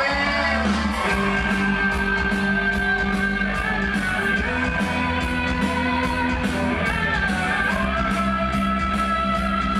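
Live band music played loud through a PA: a steady fast beat, a constant bass line and long held melody notes.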